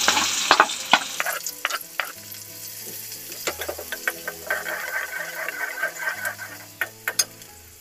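Chopped onion frying in hot oil in a small kadai, with a tempering of mustard seeds, dals, cumin and dried red chillies, as it is stirred with a spoon. The sizzle fades gradually, and sharp clicks and taps are scattered through it.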